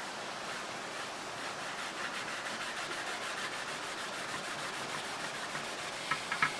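A dark abrasive pad with a white paste scrubbing the rusty steel pan of a steelyard scale in circular strokes, a steady rubbing scrape. Near the end come a few short, sharp metallic clicks.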